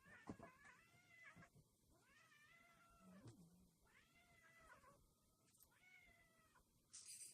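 A cat meowing faintly, four drawn-out meows in a row, each rising then falling in pitch, the second trailing off in a long downward slide. A brief rustling noise comes near the end.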